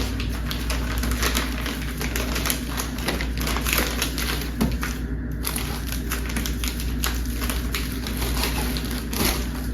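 Plastic food packets and bags crinkling and rustling as they are handled and stuffed into a bike frame bag, with many small irregular clicks and taps.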